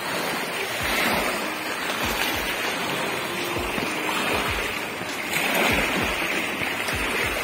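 Small river waves lapping and washing onto a pebble shore: a steady rush of water that swells about a second in and again after about five seconds.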